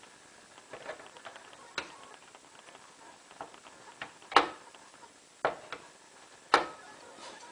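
Irregular clicks and knocks from a Hotpoint WT960 washing machine's door lock being tried by hand, the two sharpest knocks coming about four and a half and six and a half seconds in.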